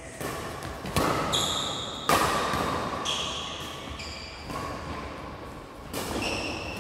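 Badminton rackets striking a shuttlecock in a rally, sharp hits about once a second, each with a short ringing ping and echoing in a large hall.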